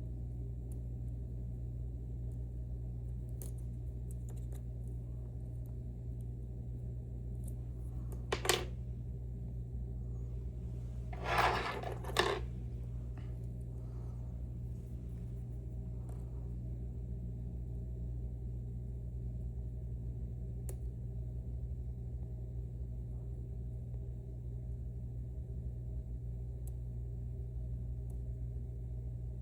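Lockpick tools working inside a Mauer NW4 dimple lock's keyway: faint metallic ticks and scrapes, one sharp click about eight seconds in, and a quick pair of clicks with scraping a few seconds later. A steady low hum runs underneath.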